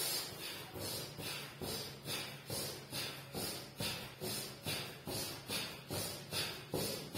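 Rhythmic sound of a man doing jumping jacks barefoot on a mat, about two beats a second, steady throughout.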